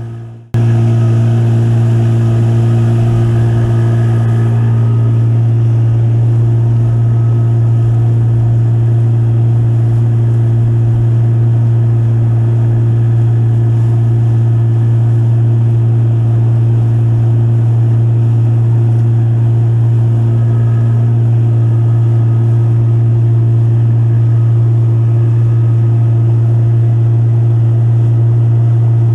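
Boat motor running at a steady speed, a loud even drone that starts suddenly about half a second in.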